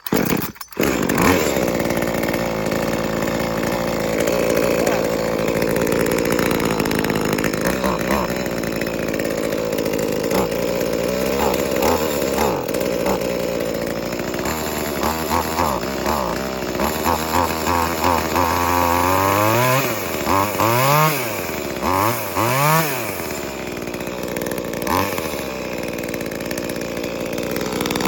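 Brand-new V Modest two-stroke chainsaw, a clone of the Echo 2511, starting on its first run after being choked and primed. It catches about a second in after a pull of the starter cord and runs steadily. In the second half it is revved up and down repeatedly in short throttle blips.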